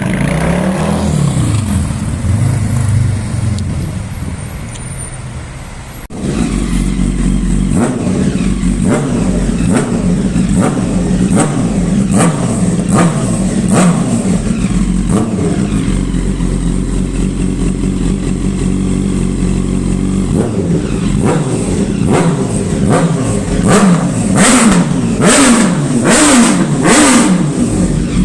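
Motorcycle exhaust, loud: an engine that fades away over the first six seconds, then a sudden change to an engine being revved hard over and over, the revs rising and falling quickly, most busily near the end.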